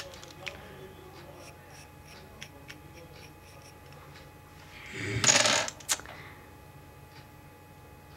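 Makeup items being handled and knocked together: a few light clicks, a brief clattering rattle about five seconds in, then a single click.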